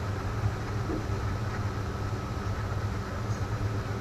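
Steady low background hum with a faint constant higher tone, like a fan, air conditioner or distant engine running under the recording.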